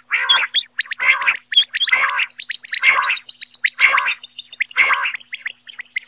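Common quail calling over and over: a harsh, rasping call about once a second, with short sharp high chirps in between.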